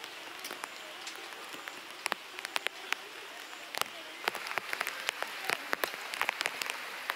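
Light rain: a steady hiss with scattered drops ticking sharply on the tarp flysheet overhead. About four seconds in the hiss turns brighter and the ticks come thicker.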